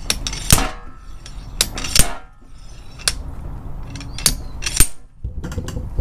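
Slide hammer on a puller clamped to the inner hub seal of a steering knuckle, its weight clanking against the stop in repeated sharp metal strikes, about six hard ones at an uneven pace, working the seal loose.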